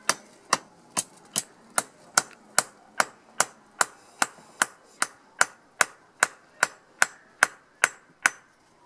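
Hand hammer striking a steel bar on an improvised steel-block anvil, forging a bodkin arrowhead: about twenty even, sharp metallic blows at roughly two and a half a second, stopping just before the end.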